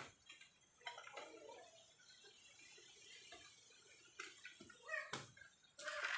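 Faint clicks and taps of a plastic toy construction vehicle being handled and set down on sand, with a few sharper knocks about a second in and again near the end. A louder noise begins just at the very end.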